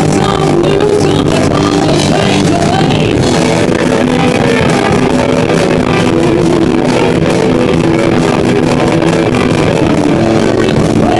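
Live rock band playing loud: distorted electric guitars over a drum kit.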